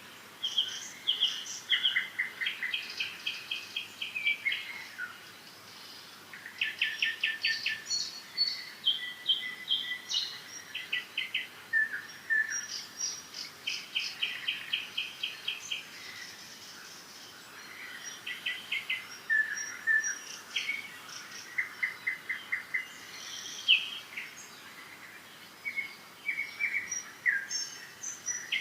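Songbirds singing and chirping: repeated phrases of rapid trilled notes and short whistles, with brief pauses between bouts, over a faint steady outdoor background.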